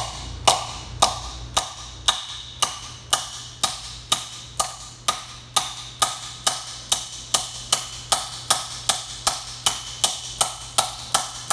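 Small hammer striking a Speedi-Sleeve installation tool in steady blows, about two a second and quickening slightly, driving the thin steel sleeve onto a harmonic balancer's grooved seal surface. The ringing tone of each strike is getting really sharp as the tool bottoms out.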